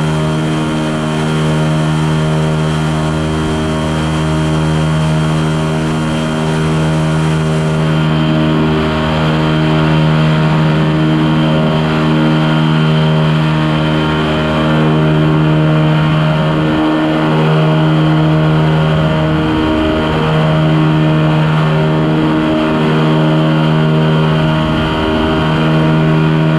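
Quicksilver ultralight's engine and propeller running steadily in cruising flight, a constant loud drone.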